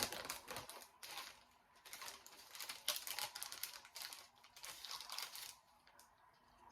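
Potato chip bag crinkling and rustling in irregular crackly bursts as it is handled, fading near the end.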